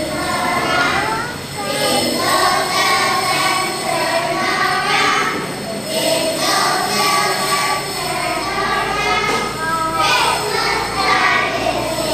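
A group of kindergarten children singing a song together, with small jingle bells shaken along.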